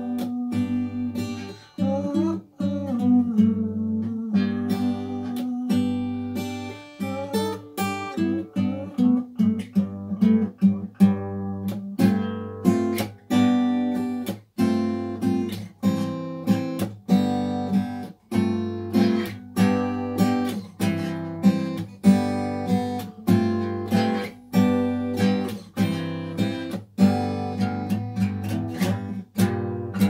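Acoustic guitar played solo: held chords and notes ringing at first, then a steady rhythm of strummed chords from about halfway through.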